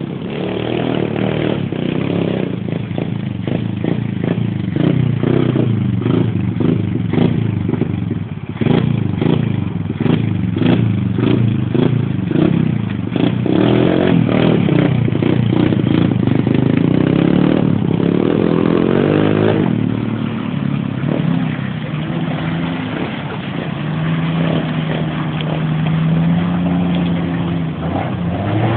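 Off-road vehicle engines revving and labouring in mud, with rapid clattering through the middle, a rising rev about two-thirds of the way through, then a steadier engine note.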